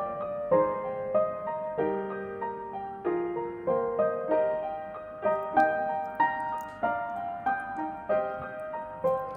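Background piano music, a gentle melody of notes struck about twice a second, each fading away.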